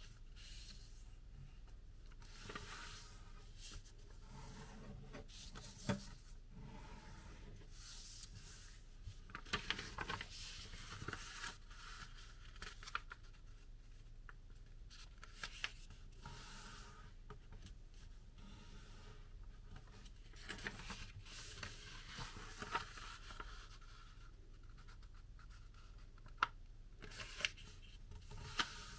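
Sheet of paper being folded and creased by hand: faint, scattered rustling and rubbing as fingers press and slide along the folds, with a few sharper ticks, two of them near the end.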